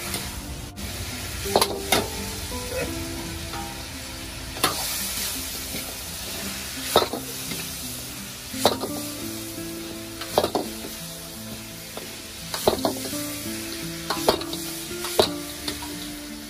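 Sauce-fried chicken sizzling in an iron wok as it is stir-fried, with a metal ladle clanking and scraping against the wok about every one to two seconds.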